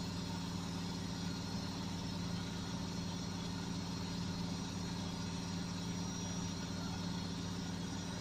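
Beko washing machine running its spin-and-drain cycle: a steady motor hum that holds one pitch without rising or falling.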